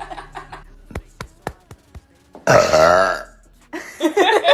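A young woman's loud burp, lasting under a second around the middle, with a wavering pitch. A few sharp clicks come before it.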